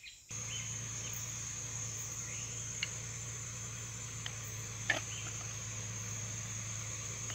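Steady high-pitched insect chirring over a low steady hum, with a few faint clicks.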